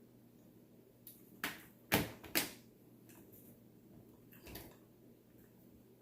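A few sharp taps and clicks of seafood being handled and set down: a light one about a second and a half in, the two loudest about two seconds in, and a softer one near the end.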